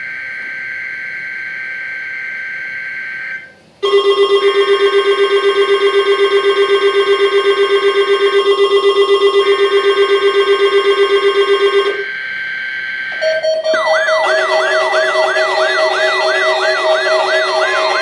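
NOAA Weather Radio Required Weekly Test alert. It opens with the SAME digital header, a harsh screech of two alternating data tones. About four seconds in, a weather-alert receiver's alarm starts: a loud tone pulsing about six times a second. Near the end a siren-like warble joins it, rising and falling about twice a second.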